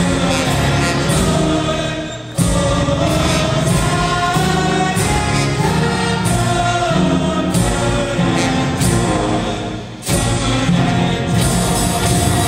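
Gospel-style choir singing over loud music with a strong bass; the music sags and then cuts back in abruptly twice.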